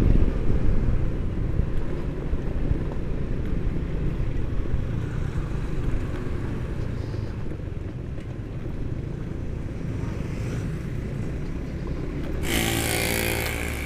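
Motorcycle engine running at a steady cruise, with wind and road rumble on the bike-mounted camera. Near the end a louder rushing noise rises briefly, as a vehicle passes close by.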